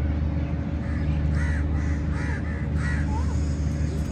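A series of short bird calls, about five or six between one and three and a half seconds in, over a steady low hum.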